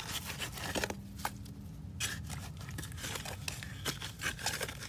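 Digging in soil around a cut pool pipe: irregular scraping and crunching strokes as the dirt is dug out to make room for a pipe coupling.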